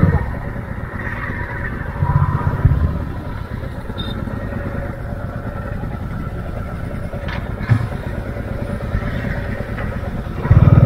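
Motorcycle engines idling steadily. Louder low rumbles come about two seconds in and again at the end.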